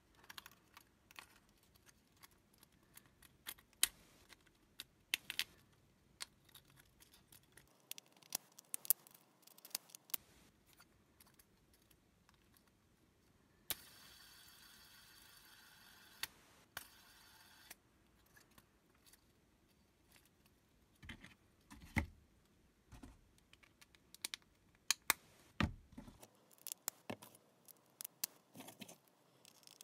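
3D-printed plastic hex tiles clicking and snapping as they are handled and fitted together, the clicks coming thicker near the end. Midway a hex-tile fidget spinner whirs on its bearing for about four seconds.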